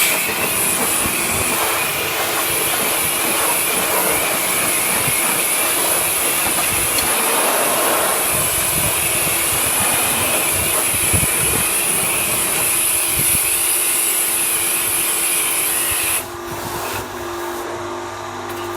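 Compressed-air blow gun hissing steadily as dust is blown out of an old power supply's chassis, cutting off suddenly near the end.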